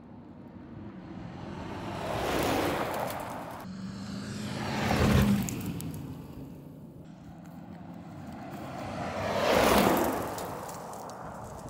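A car driving past three times, each pass swelling up and fading away with a whoosh of tyres and air, the second and third passes the loudest. An engine note is heard under the middle pass, and the sound cuts sharply between passes.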